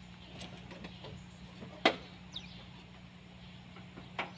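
Two sharp knocks, the louder one about two seconds in and a softer one near the end, over a faint steady low hum, with a bird's short falling chirp between them.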